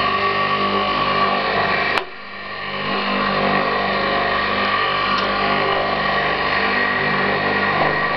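Homemade wood lathe's 1.5 kW electric motor running steadily at about 3000 rpm, with an elm blank spinning on its shaft. About two seconds in a sharp click cuts in, and the hum dips and builds back up over about a second.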